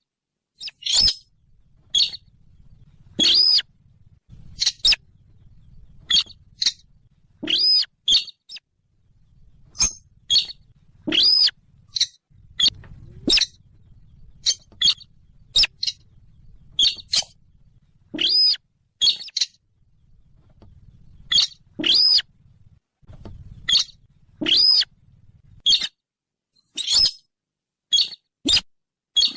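Recorded sintar bird lure call: short, sharp, high calls repeated irregularly about once a second, some in quick pairs, over a faint low hum.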